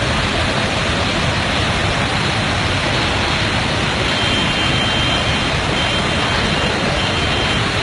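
Floodwater from a burst dam rushing past in a loud, steady, unbroken noise.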